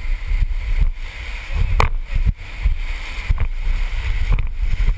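Whitewater rushing and splashing around a raft running a rapid, with wind buffeting the microphone and a sharp knock about two seconds in.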